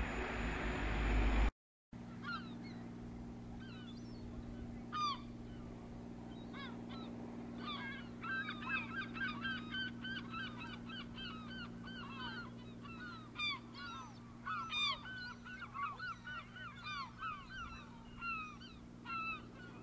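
A flock of birds calling: many short, downward-sliding calls, overlapping and growing denser about eight seconds in, over a steady low hum. Before that, harbour ambience cuts out abruptly about a second and a half in.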